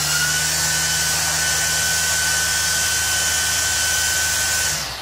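Greenworks 40V top-mount battery string trimmer running its nylon line head at normal speed: a steady high motor whine over a rush of air. Near the end the trigger is released and it winds down.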